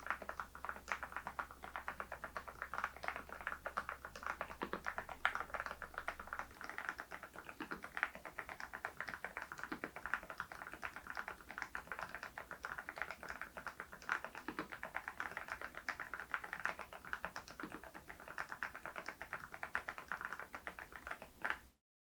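Continuous typing on an RK R99 mechanical keyboard fitted with HMX V0-SS switches, a dense, even stream of key clacks that stops suddenly near the end.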